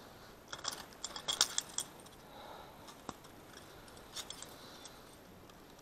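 Steel trap hanging from a carried pole, clinking and rattling as it swings with each step: a quick run of light metallic jingles about half a second to two seconds in, a single click near three seconds, and a few more around four seconds.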